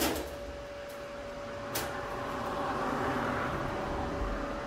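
A few light clicks and handling noises as a spirit level is set on a welded steel seat frame and lifted off again, one sharp click about two seconds in, over a steady workshop hum.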